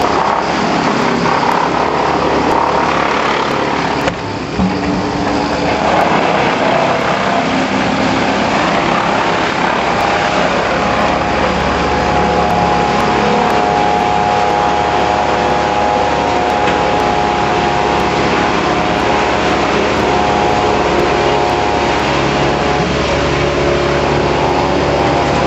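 Engine of motorized tree-removal equipment running loud and steady, with a brief drop about four seconds in and a small shift in pitch near the end.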